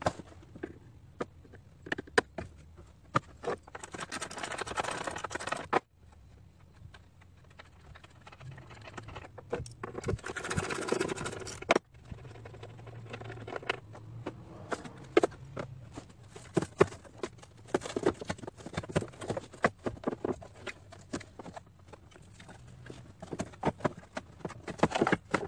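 Irregular clicks and knocks of metal tools and parts being handled in a truck's engine bay, with two stretches of dense rasping noise a couple of seconds long, each cutting off abruptly.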